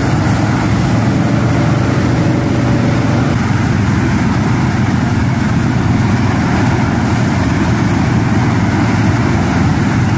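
A tractor towing a flame-weeding burner bar: a steady, unbroken engine-and-burner noise with most of its weight low down.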